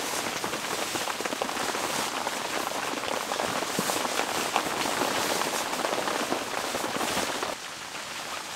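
Crinkly rustling of a Sea to Summit Spark SpIV down sleeping bag's thin nylon shell and its stuff sack as the bag is pulled out and shaken open on a sleeping mat. It is a dense, crackling rustle that turns quieter about a second before the end.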